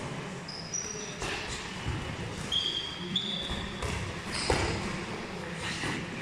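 Gloved punches landing during boxing sparring, several thuds with the loudest about four and a half seconds in, mixed with short high squeaks of shoes on the ring floor.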